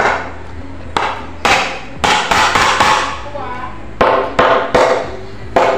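Claw hammer driving nails into a wooden door jamb frame: about a dozen sharp strikes in irregular groups, some in quick runs.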